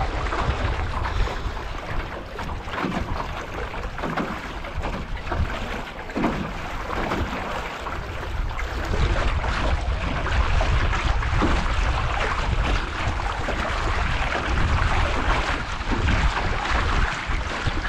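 Wind buffeting the microphone with a steady low rumble, over the irregular splash and rush of choppy water against the hull of a Grumman 17 aluminium canoe under sail.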